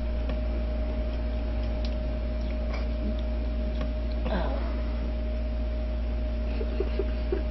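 Steady low hum with a faint, constant tone over it, broken by a few faint clicks and a brief faint voice-like sound about four seconds in.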